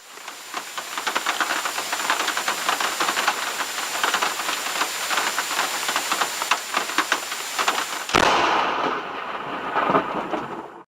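Heavy rain falling, a dense hiss full of quick drop ticks. About eight seconds in the sound changes abruptly to a different, more muffled rushing noise of the storm.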